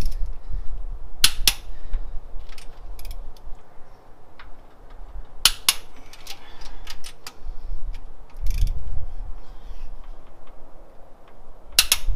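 Click-type torque wrench tightening ARP head-stud nuts on an LS1 V8 to 75 foot-pounds: three sharp double clicks as the wrench breaks at its set torque, with lighter ratchet ticks between the pulls.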